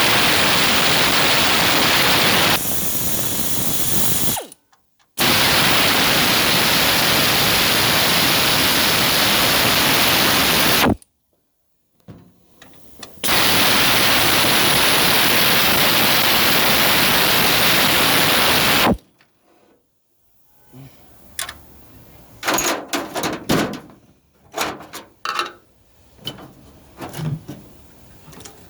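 A power tool, such as a drill or air ratchet, runs in three long steady bursts, typical of backing out a Turbo 400 transmission's oil-pan bolts. In the last third, metal clicks and knocks are heard as parts are handled.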